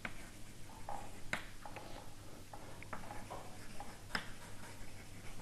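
Light, irregular taps and clicks of writing on a board, over a steady low room hum.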